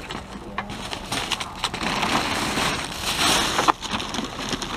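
Plastic garbage bags rustling and crinkling, with irregular clicks and knocks of trash being handled in a plastic wheelie bin; busiest about two to three and a half seconds in.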